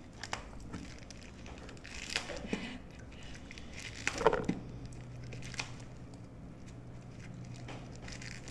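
Eating sounds: scattered crisp crunches, clicks and chewing as food is bitten and eaten by hand, with a short laugh about four seconds in.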